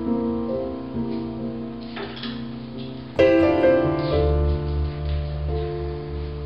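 Background piano music, with a loud new chord struck about three seconds in and a low bass note held after it.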